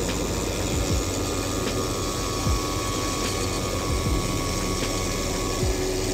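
Shoe finishing machine running with a steady motor hum while its abrasive wheel roughs up a new leather sole, with a few short scuffs as the leather is pressed against the wheel.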